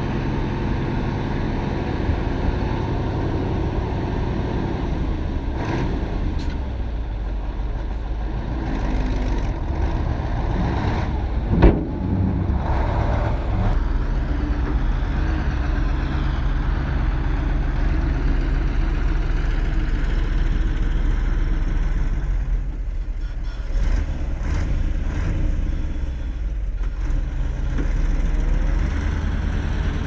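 Diesel engines of heavy earthmoving machinery running steadily, with one sharp, loud knock about twelve seconds in.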